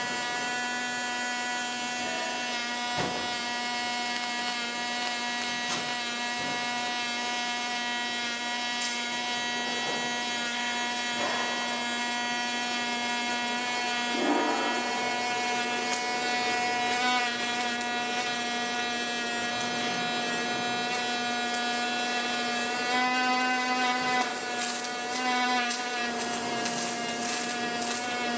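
MIG/MAG welding arc running a bead on a 3-inch pipe: a steady buzzing hum at one fixed pitch, which wavers briefly about three-quarters of the way through.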